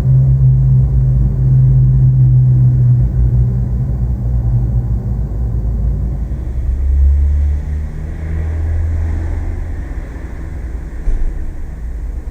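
Urban residential ambience: a steady low rumble with deep hums that drop lower in pitch about seven seconds in. A small click comes near the end.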